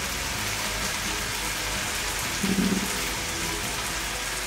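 A pan of koottu curry sizzling on the stove with an even, rain-like hiss as coconut oil heats over it. A short low hum comes about two and a half seconds in.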